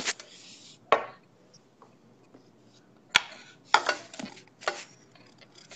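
Fingertips tapping on a phone's touchscreen while typing a message: a handful of irregular sharp taps.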